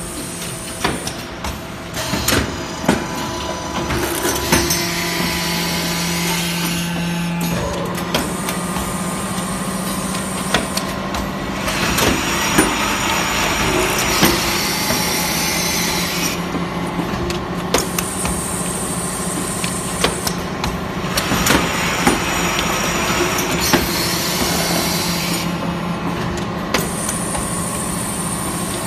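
Automatic cap-removing machine for copper tee fittings running: a continuous mechanical clatter with frequent sharp knocks, and a hissing noise that comes and goes in stretches of a few seconds.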